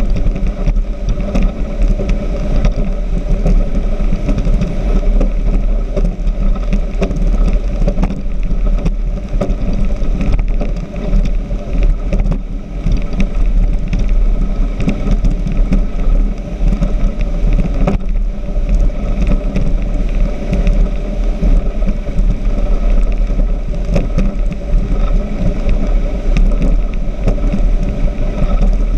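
Speedboat engine running steadily at speed, with a constant rush of water noise over it.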